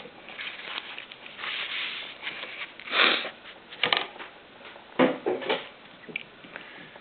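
Scattered light clicks and a few short rustles, with no steady stitching rhythm: handling sounds at an industrial walking-foot sewing machine.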